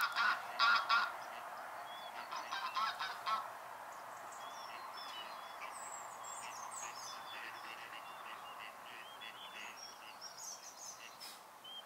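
Loud bird calls in two bouts within the first three and a half seconds, followed by steady background noise with faint, thin high chirps of small birds scattered through the rest.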